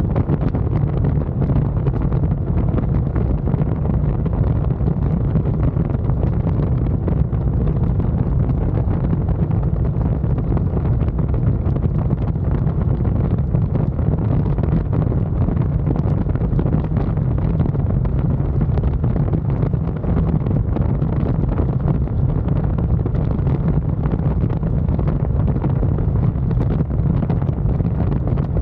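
Steady wind rush buffeting the microphone on a motorcycle cruising at road speed, a constant low roar with no change in pace.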